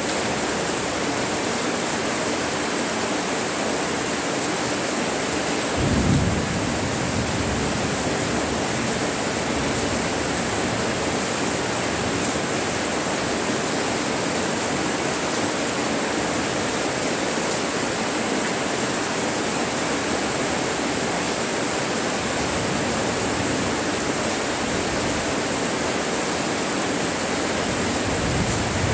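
Steady rain falling, with a short low rumble of thunder about six seconds in and a fainter one near the end.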